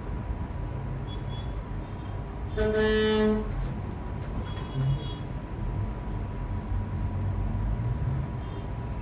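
A single short horn toot, under a second long, about three seconds in, over a steady low background rumble.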